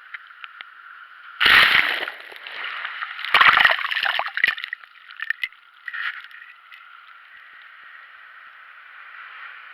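Sea water sloshing and splashing, with two loud splashes about one and a half and three and a half seconds in, and a smaller one about six seconds in.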